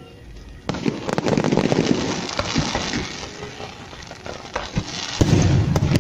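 Fireworks going off: a sudden loud burst about a second in, then dense crackling for about two seconds. Scattered pops follow, and another loud bang comes near the end.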